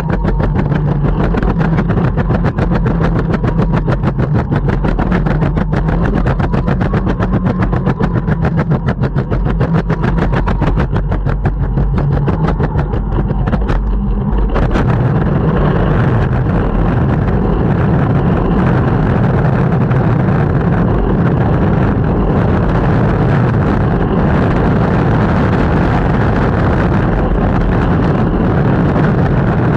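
Longboard wheels rolling on a city street, a loud steady rumble. In the first half it carries a rapid, even clicking rattle. About halfway through there is a sharp knock, and after it the roll becomes smoother and steadier.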